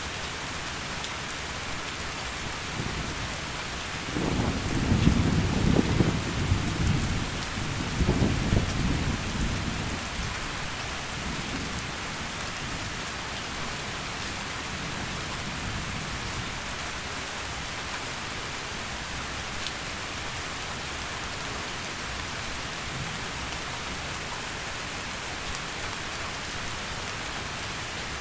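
Steady heavy rain with a roll of thunder. The rumble comes in about three seconds in, swells twice, and dies away by about ten seconds, leaving the rain alone.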